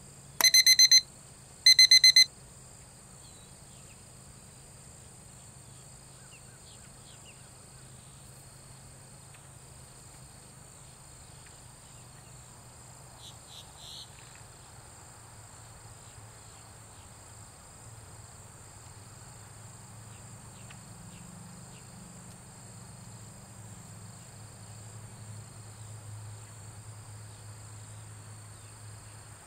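Two loud electronic timer beeps, each about half a second long and a second apart, near the start, the cue for an interval behaviour observation; steady insect trilling carries on underneath.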